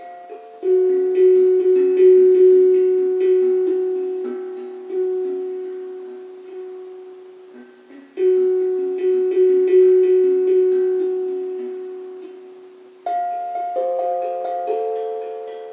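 Glucophone (steel tongue drum) played with the fingers: runs of struck notes, each ringing on and slowly fading. A new run of notes starts about halfway through and again near the end.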